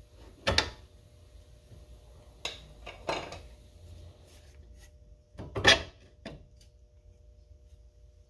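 Several sharp metal clunks and knocks, the loudest about five and a half seconds in, from hands working a car's upper control arm and ball joint free of the front steering knuckle.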